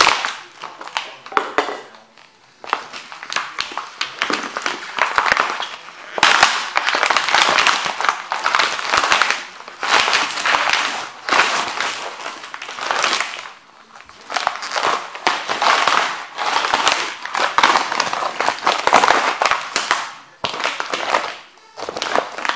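Cofra Thermo rubber boots trampling a painting: the canvas crackles and crumples underfoot in repeated bursts of a second or two, shot through with sharp cracks as the wooden stretcher frame is stepped on.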